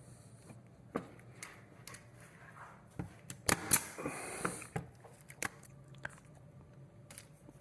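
Scattered light knocks and clicks of handling, with two louder knocks and a brief rattling clatter about three and a half seconds in.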